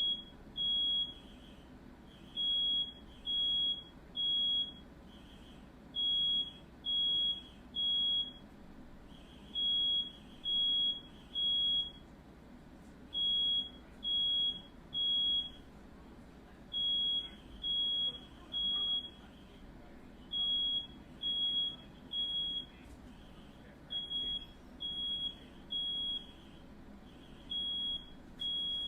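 Smoke alarm sounding its three-beep evacuation pattern: a high, piercing beep three times in quick succession, repeating about every three and a half seconds. It has been set off by smoke from a firework.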